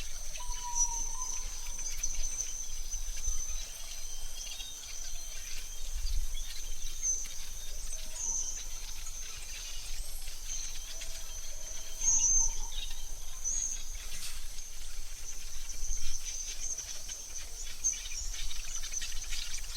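AI-generated forest ambience: a steady high-pitched insect drone with a few short bird calls scattered through it, over a faint low rumble.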